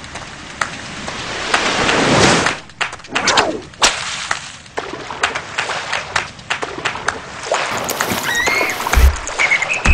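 Layered sound effects: scattered clicks and knocks, a swelling rush of noise that cuts off about two and a half seconds in, and a few short bird-like chirps later on. Near the end deep bass thumps come in as the music starts.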